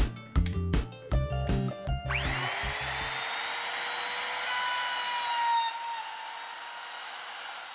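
Background music with a beat, cutting off about two seconds in as a trim router spins up with a rising whine. It then runs steadily at speed with a high, even whine.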